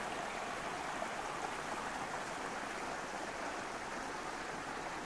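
Small woodland stream of rainwater runoff running steadily down a slope, a continuous even water noise; it is full after days of rain.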